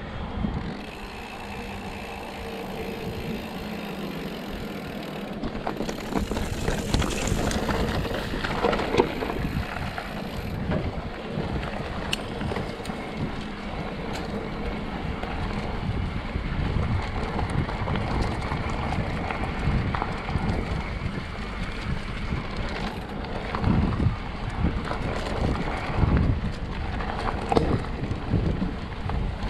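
Mountain bike riding fast down a bumpy dirt trail: tyres rolling over rough ground, with a steady rush of wind on the microphone and frequent knocks and rattles from the bike over bumps, heavier in the second half.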